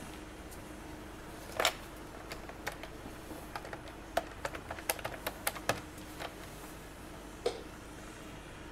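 A knock, then a quick irregular run of about fifteen clicks over some four seconds as the push buttons of a corded desk telephone are pressed to dial a number; one more knock near the end.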